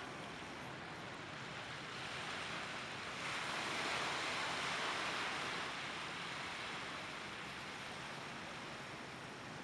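Sea surf washing onto a beach: a steady hiss of small waves, with one wave swelling up about three seconds in and fading away a few seconds later.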